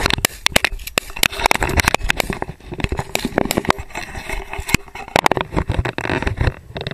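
Dense, irregular crackling and rustling with a low rumble: handling and wind noise on a camera mounted on a shotgun as the gun is swung.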